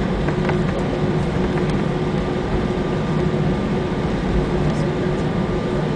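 Steady cabin noise inside an Airbus A320 taxiing: a constant drone from the engines and air systems, with a low hum and a fainter, higher whine held at one pitch.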